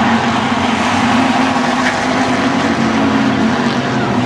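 Hobby-class race car engines running hard under racing, a loud steady drone whose pitch wavers slightly.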